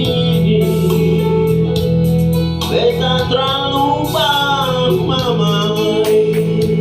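A song playing: a voice singing over instrumental backing, with a steady low note held underneath throughout.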